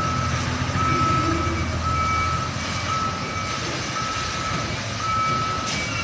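Reverse alarm beeping about once a second over the running diesel engine of a Mitsubishi Fuso tractor unit hauling a shipping container.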